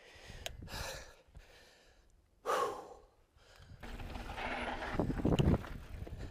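Mountain bike rolling fast down a loose dirt trail, its tyres and frame giving a rough rushing noise, with the rider breathing hard. A short louder burst comes about two and a half seconds in, and the noise grows louder from about four seconds on.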